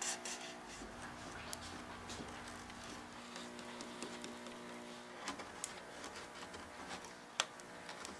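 Faint small clicks and taps of hands working with masking tape, a plastic glue bottle and a knife on a veneer panel, with one sharper click near the end, over a faint background hum.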